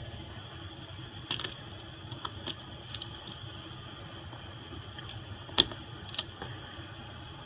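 Small tools clicking and tapping against an iPhone SE as it is taken apart, a handful of separate sharp clicks over a steady background hum; the loudest click comes a little over halfway.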